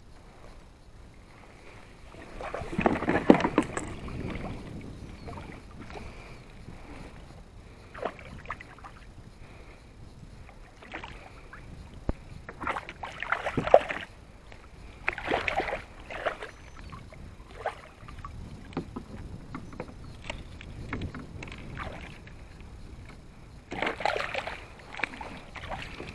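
Water splashing and slapping against a kayak's hull in irregular bursts, with occasional small knocks.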